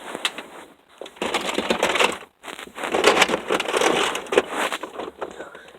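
Dense crackly crunching and clattering close to the microphone, with a brief break a little after two seconds in.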